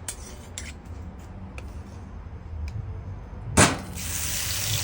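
Food hits hot oil in a pan with a sudden loud hiss about three and a half seconds in, then goes on sizzling steadily.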